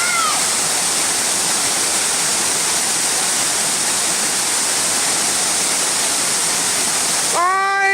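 Waterfall rushing: a steady, loud wash of falling water. Near the end it cuts off suddenly and a voice calls out once, a long note that falls in pitch.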